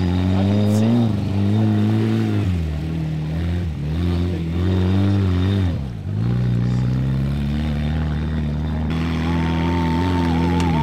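Small tractor's engine labouring through mud, its pitch rising and falling as the throttle is worked, with sharp dips in engine speed about two and a half, four and six seconds in.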